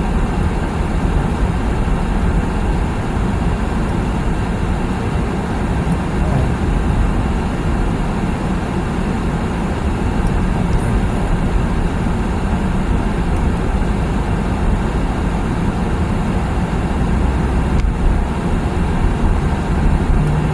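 Steady in-cabin noise of a car driving on a snowy road: engine and tyre rumble blended into an even, low drone.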